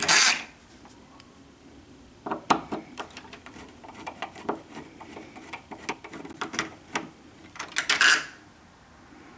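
Screws being backed out of the old deadbolt's interior mounting plate: scattered small metallic clicks and ticks, with two short, louder bursts of noise, one right at the start and one about eight seconds in.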